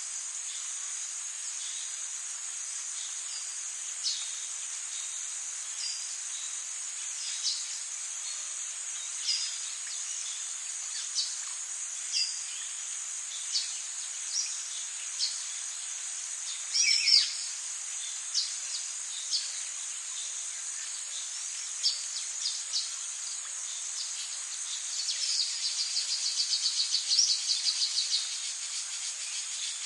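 Forest ambience: a steady high-pitched insect chorus, with birds giving short chirps every second or two. About halfway through a louder bird call falls in pitch, and near the end a fast trill builds for a few seconds.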